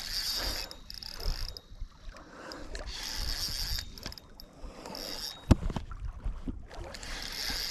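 Spinning reel being cranked to bring in a hooked fish, its gears whirring unevenly, with handling clicks and one sharp knock about five and a half seconds in.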